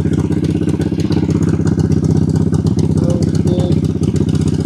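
Suzuki Volusia 800's liquid-cooled V-twin engine idling steadily with its fresh coolant fill, run to check the cooling system.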